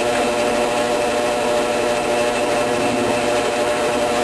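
Small power tool's electric motor running steadily, with an even pitched hum, while working wood.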